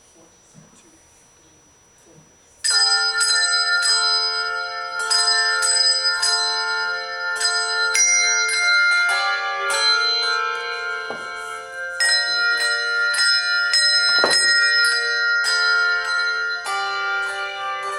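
A handbell choir starts playing a little under three seconds in: many tuned handbells rung together in chords, each chord starting sharply and ringing on under the next.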